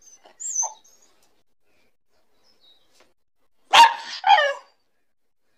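Black Labrador barking twice in quick succession, about half a second apart, a little past halfway. A short, softer sound comes about half a second in.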